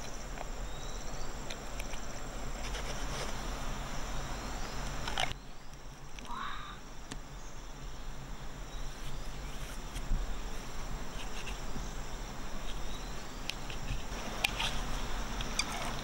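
Outdoor background of insects chirping steadily, with a few faint clicks near the end. The background drops off abruptly about five seconds in.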